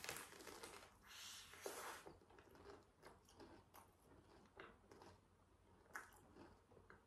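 Faint biting and chewing of a fried apple pie: the noisiest bites come in the first two seconds, then quieter chewing with small scattered mouth clicks.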